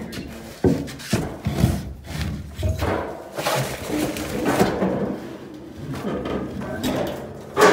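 Wooden boards knocking and scraping on a plank floor as a heavy wood cookstove is levered and shifted on them, with several sharp knocks, the loudest just before the end.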